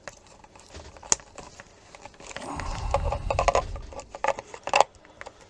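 Plastic handling noise and a series of sharp clicks and knocks as a PP3 9-volt battery is pressed into the LCR meter's tight battery compartment. A low rubbing rumble comes in the middle, and the loudest click falls near the end.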